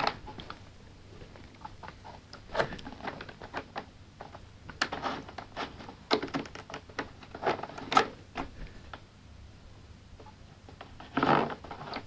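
Jean Claude Constantin Steuerrad wooden puzzle box being worked by hand: irregular light clicks and clacks as its wooden levers and pieces are slid and pushed. A brief louder burst of noise comes near the end.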